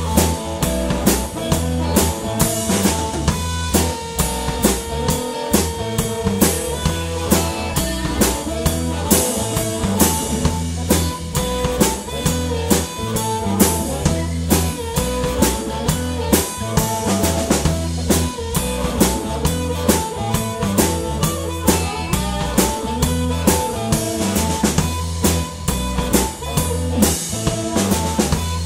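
Live blues-rock band playing a driving, steady groove on drum kit, electric bass and electric guitar, with an amplified harmonica wailing in held and bending notes, cupped against a microphone.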